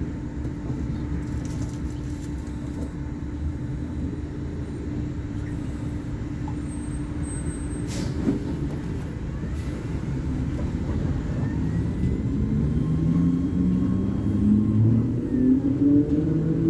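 Volvo B58 bus's six-cylinder diesel engine running steadily, then accelerating from about two-thirds of the way in, its pitch rising and getting louder. A single sharp click about halfway.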